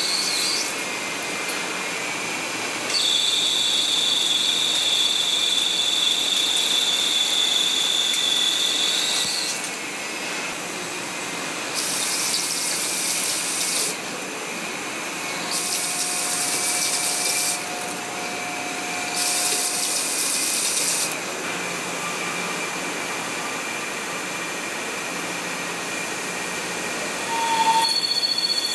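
Hwacheon C1 CNC turning center cutting an aluminium (AL 6061) workpiece: steady machine whine with a loud high squealing tone for several seconds early on, then three short bursts of high hiss in the middle, as the tool roughs and then grooves the outer diameter.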